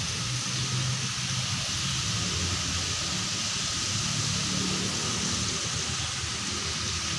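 Steady rushing hiss of water cascading down a stepped stone garden stream, with a low rumble underneath.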